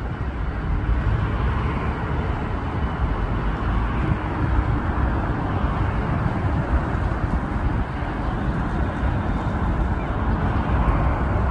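Steady city street noise with a low rumble, as a Pesa tram approaches along its tracks.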